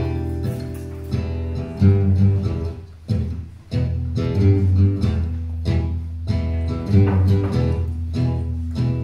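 Acoustic guitar strumming chords, the instrumental intro to a folk song before the vocals come in, with a short break about three seconds in.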